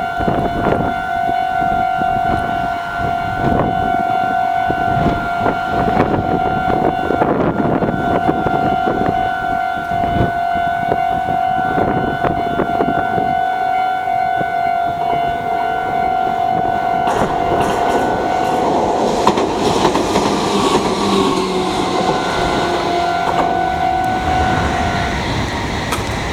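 A Japanese level-crossing alarm ringing steadily while a Meitetsu 6000-series electric train runs over the crossing, its wheels clattering on the rails. The alarm stops near the end as the train clears.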